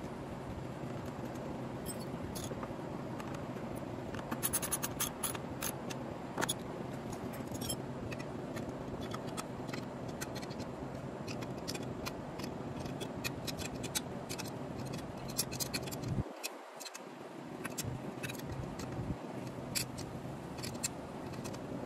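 Scattered sharp clicks and light scrapes of hand tools and metal parts while a pit-bike exhaust is bolted on, with a quick run of clicks about five seconds in, over a steady background hiss.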